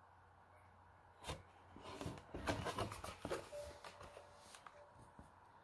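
A large hardcover picture book being handled and its page turned: a soft knock, then a couple of seconds of paper rustling and sliding.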